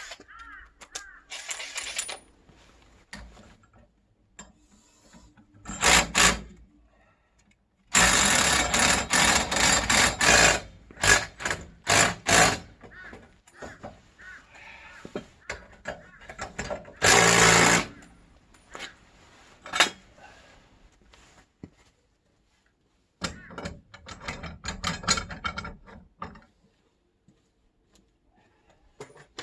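A motor-driven power tool running in several short bursts with a rattling, hammering sound, the longest lasting about two and a half seconds, with pauses between.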